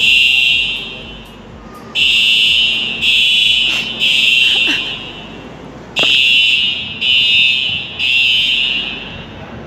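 Electronic alarm sounding in loud, high-pitched beeps, about one a second in runs of three with a short pause between runs. The alarm was set off, the onlooker believes, by someone stepping on a spot where they were not supposed to step.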